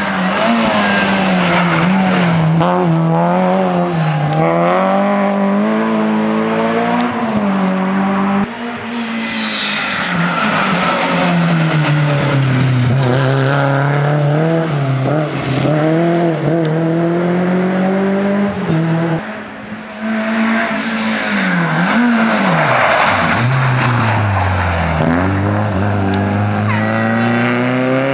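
Small front-wheel-drive rally cars, a Peugeot 205 and Renault Clios, driven flat out on a stage: engines revving hard, the pitch climbing and dropping through gear changes and lifts for corners, with tyres squealing. The sound is three separate passes cut together, changing abruptly about a third and about two-thirds of the way through.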